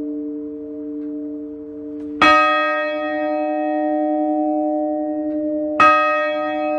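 Church bells ringing, heard close up inside the wooden belfry. A long ringing hum carries on from an earlier stroke, then two fresh strikes come about three and a half seconds apart, each sharp at first and ringing on with many overtones.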